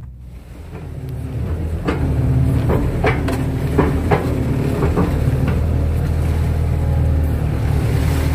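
Kato tracked excavator's diesel engine speeding up over the first couple of seconds, then running steadily under throttle, with several clunks from about two seconds in as the machine works.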